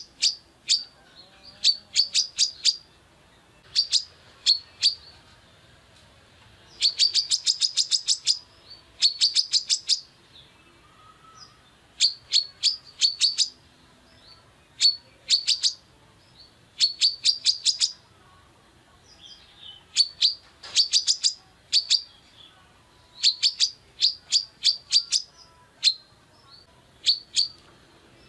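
Female kolibri kelapa sunbird calling hard in bursts of sharp, high chirps, each burst a quick string of notes, some run together fast like a trill, with short pauses between bursts.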